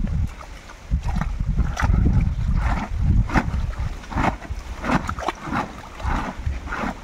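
Live fish being released from a sack into shallow pond water: a series of irregular splashes as they are tipped and dropped in and flap away, over a steady rumble of wind on the microphone.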